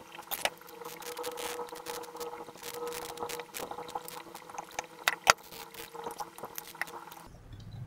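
Irregular small clicks and crackles of hands working on an inverter AC outdoor circuit board, applying glue around the large capacitors and copper-wound coil to hold them in place, with one sharper click about five seconds in. A faint steady hum sits underneath, and it all stops shortly before the end.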